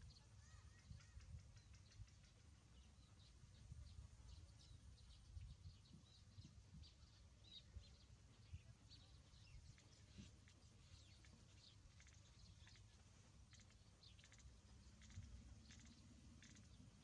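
Near silence, with faint scattered short high-pitched ticks and chirps over a low rumble.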